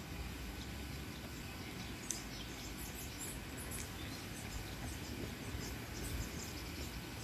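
Outdoor ambience: a steady low rumble of wind on the microphone, with short high bird chirps about two to four seconds in.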